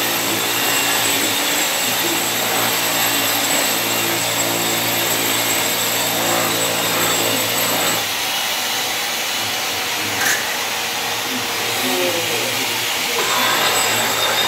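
Electric handheld power tool motor, likely the stone polisher, running steadily with a whirring hum and hiss. About eight seconds in the low hum drops away while the hiss carries on.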